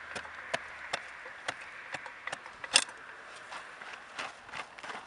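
Small hand trowel chopping and scraping into earth, about two strikes a second, with one sharper knock a little under halfway through.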